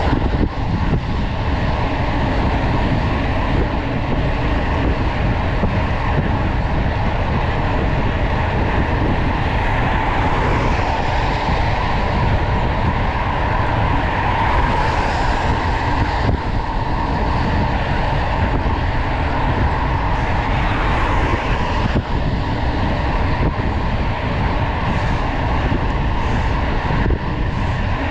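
Steady wind noise buffeting the microphone of a camera on a mountain bike ridden fast on asphalt, mixed with the rumble of the bike's tyres on the road surface.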